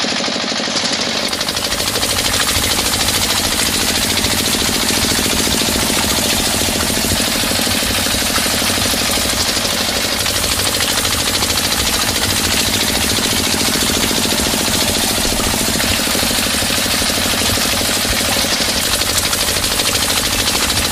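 Small motor of a miniature belt-driven water pump running steadily with a rapid, even knocking rattle, with water pouring from the pump's pipe into a shallow pit.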